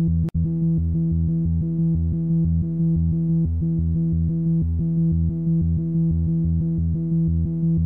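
Background electronic synthesizer music: steady held tones over a pulsing bass line. It cuts out for an instant just after the start.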